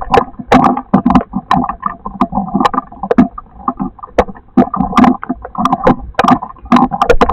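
Storm precipitation pelting a hard surface close to the microphone: many sharp, irregular knocks, several a second, over a steady rumble.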